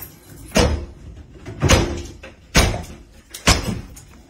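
Four heavy blows against a closed wooden front door from outside, about one a second, as the door is being forced in.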